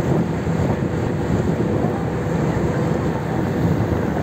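Car ferry underway: a steady low drone of its engines mixed with the rush of the propeller wake churning behind the stern.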